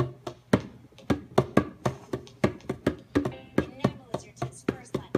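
A pair of wooden bongo drums slapped by a cat's paws, a steady beat of about four hits a second, each hit with a short drum ring.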